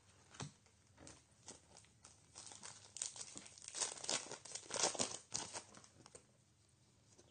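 A trading-card pack wrapper crinkling and tearing as it is handled and ripped open, after a few light taps; the crinkling builds from about two seconds in and stops at about five and a half seconds.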